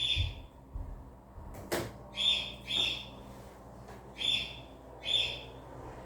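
A bird calling: about five short, high calls, mostly in pairs, with a single sharp knock between the first and second.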